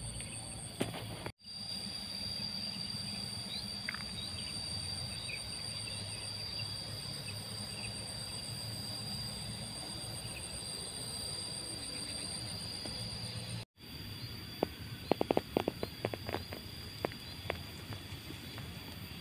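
Insects trilling steadily in a farm field, one high pulsing trill over a steady high tone. It is broken by two brief dropouts, and a quick run of sharp clicks and taps comes about three quarters of the way through.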